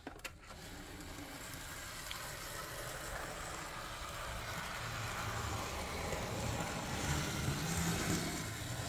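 Z scale AZL E7A model diesel locomotive running on the track: a steady whir of its small motor and wheels on the rails, growing louder toward the end.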